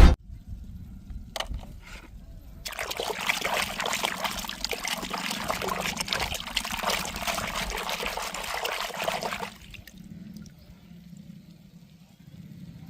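Water running and splashing for about seven seconds, starting about three seconds in and stopping near ten seconds, after a few light knocks. It is the sound of toy cars being washed.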